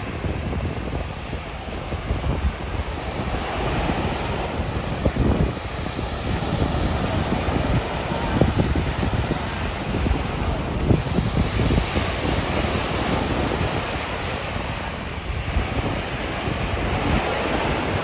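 Small surf breaking and washing up a sandy beach, the wash swelling and fading several times, with wind buffeting the microphone.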